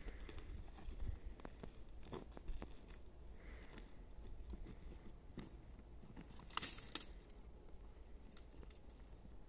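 Faint rustling and scattered small clicks, with two sharper clicks close together about seven seconds in.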